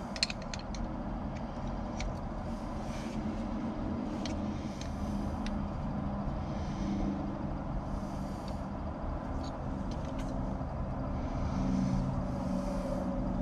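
Scattered light metallic clicks of two wrenches working a brass fuel-filter fitting, over a steady low machine hum that runs throughout.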